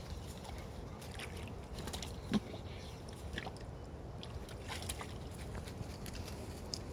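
Faint splashing and rustling of dogs crossing a shallow creek, with scattered small knocks and one short, sharper sound about two and a half seconds in.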